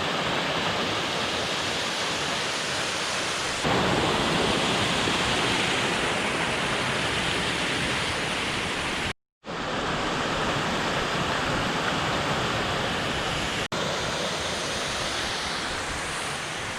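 Waterfall rushing, a steady, dense wash of falling water. It steps louder about four seconds in, cuts out briefly to silence about nine seconds in, and dips once more near fourteen seconds.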